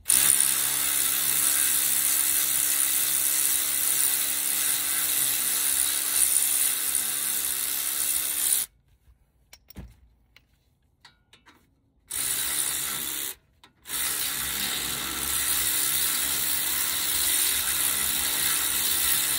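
Electric ratchet wrench spinning out brake caliper bolts: one long run of about eight seconds, a pause, then a short burst and a second long run of about six seconds.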